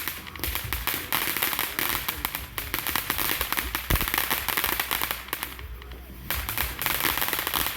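Consumer fireworks crackling: a dense, rapid stream of small pops that breaks off for a moment about six seconds in and then picks up again.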